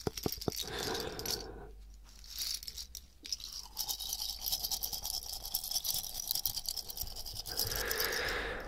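Fast, fine scratching close to the microphones, with a few light ticks in the first second.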